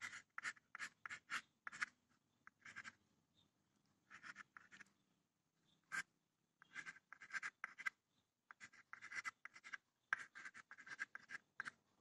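Chalk writing on a blackboard: faint, quick runs of short scratching strokes with brief pauses between them, as small circuit symbols and labels are drawn.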